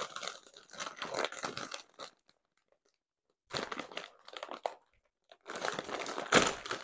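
Foil crisp bag of Funny-frisch Kessel Chips being pulled open at its sealed top: crinkling rustles in three bouts with short pauses between them. Near the end there is a louder sharp crackle as the seal tears open.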